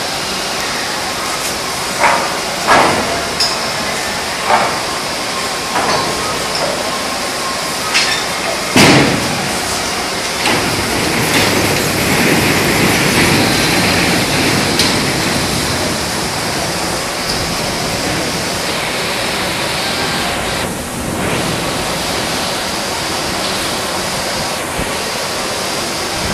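Induction melting furnace running while brass melts, a loud steady industrial noise. Several sharp knocks stand out in the first nine seconds, the loudest about nine seconds in.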